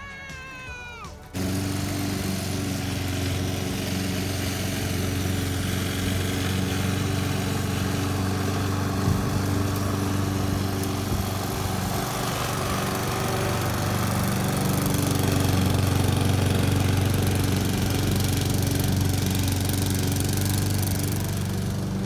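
Lawn mower engine running steadily, a constant engine hum that comes in abruptly about a second in.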